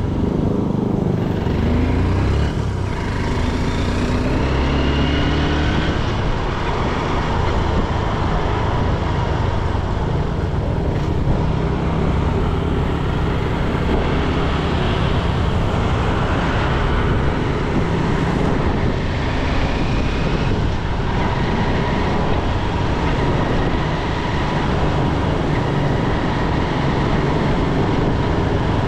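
Motorcycle being ridden along a road: engine running under way with wind rush, the engine note rising a few times in the first seconds as it speeds up, then holding fairly steady.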